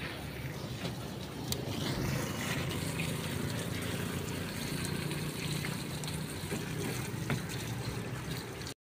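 Water running steadily with a trickling, pouring sound and a few faint clicks; it cuts off abruptly just before the end.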